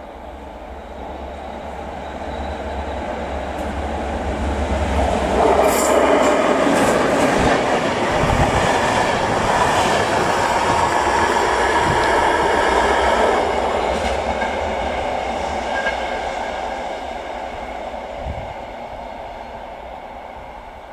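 Passenger train hauled by an electric locomotive passing close by: the rumble and clatter of its wheels on the rails grow louder, peak as the coaches go past with some clicks and thin squealing, then fade away.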